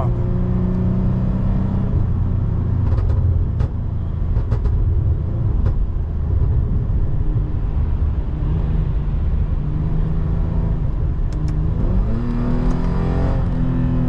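Lexus IS250's 2.5-litre V6, ECU-tuned for pops and bangs with gutted catalytic converters, running on the move with scattered sharp exhaust pops off throttle. About twelve seconds in, it revs up with rising pitch.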